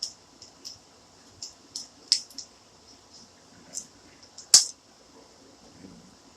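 Scattered small, sharp clicks and taps from handling laptop parts and tools during a CPU and heat sink removal, the loudest about four and a half seconds in.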